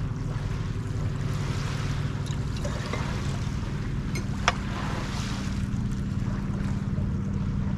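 A steady low engine hum under a constant outdoor hiss, with one sharp click about four and a half seconds in.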